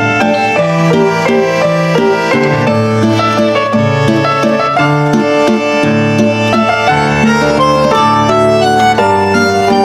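Instrumental background music: a quick, busy melody of many short notes over a steady lower line, with no pause.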